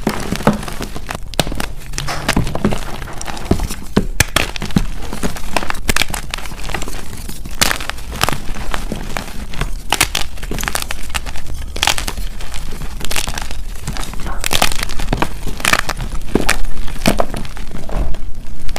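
Dip-dyed MagKing gym chalk blocks crushed and crumbled by hand: a dense run of dry crunches and crackles as chunks snap and the crumbled powder is squeezed, getting louder near the end.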